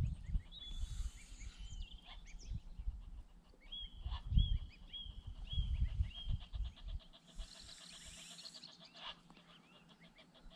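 Wind rumbling on the microphone for the first several seconds, with birds calling: a run of short, high peeps repeated about twice a second in the middle, then fainter calls.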